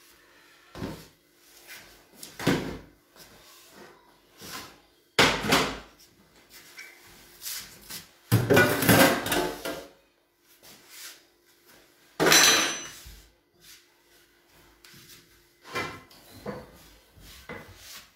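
Kitchen clatter as a worktop is cleared: a string of separate knocks and bumps of dishes and cupboard doors or drawers, the loudest about five seconds in and again about twelve seconds in, with a longer rattle of crockery around eight to ten seconds in.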